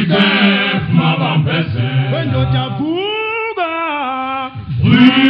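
Zulu male voice choir singing in harmony, deep voices holding long low notes under the upper parts. A little past halfway the low voices drop out while a single voice slides up and then down, and the full group comes back in strongly near the end.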